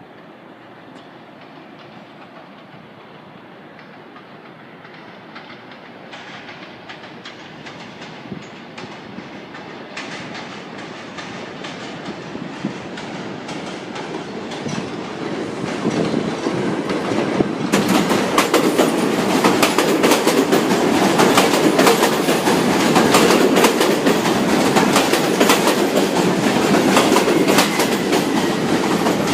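New York City Subway train approaching on the IND Liberty Avenue Line, growing steadily louder for about 18 seconds, then running close by with rapid wheel clicks over the rail joints.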